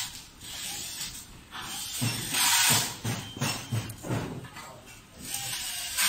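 Handling noise from working on a key cutting machine's metal frame and screws: hissy bursts of rustling and scraping, with a run of short knocks in the middle.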